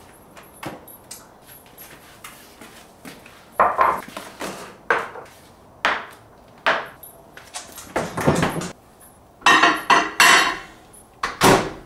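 A series of irregular knocks and clatters from kitchen handling: the refrigerator door opened, plastic food containers taken out and set down on the counter, and a microwave door opened. The loudest clatters come in a quick cluster about ten seconds in.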